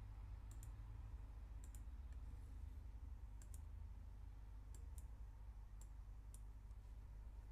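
Faint computer mouse clicks, a scattered handful with several in quick pairs, over a low steady hum.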